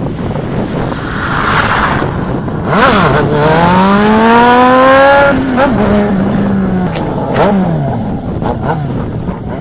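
Inline-four sport motorcycle engine accelerating hard: its pitch climbs for about two seconds, dips briefly at a gear change, holds steady, then falls away near the end.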